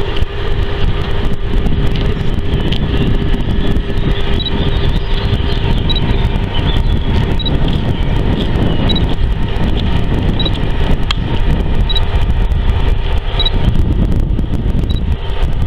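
Steady low outdoor rumble with a faint steady hum through the first half, and a short high beep repeating about every second and a half from a few seconds in.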